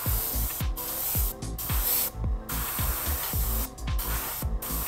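Gravity-feed airbrush spraying paint onto a fishing lure: a loud air hiss that stops and restarts several times as the trigger is worked. Background music with a steady beat plays underneath.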